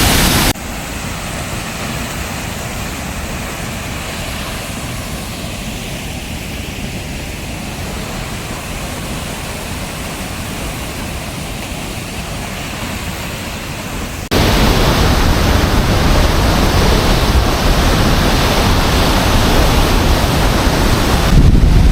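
Waterfall rushing as a steady, even roar of water. It drops suddenly to a softer level about half a second in and jumps back louder about 14 seconds in, with a stronger low rumble in the louder part.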